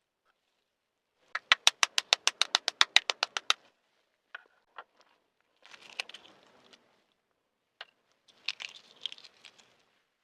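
A quick run of about twenty sharp taps in just over two seconds, then a few single clicks and short bursts of soft crackling: the shell of a balut (fertilised duck egg) being tapped and cracked open.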